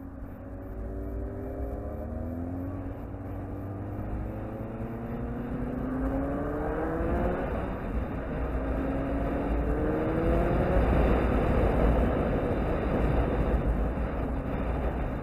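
Sport bike engine accelerating through the gears: its pitch climbs three times, dropping back at each upshift. Heavy wind noise on the microphone builds as the speed rises.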